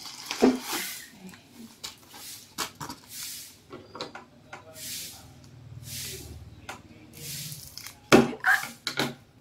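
Plastic inflatable air-column wrap rustling and crinkling in short bursts as it is handled and pulled off a small cardboard box, with scattered clicks and a sharp knock about eight seconds in.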